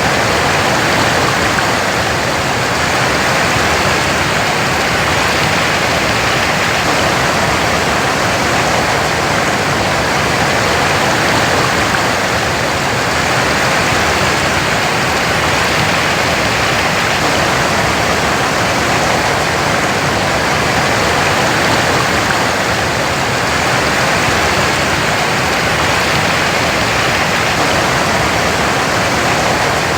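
Waterfall: a steady, loud rush of falling water with no breaks or changes.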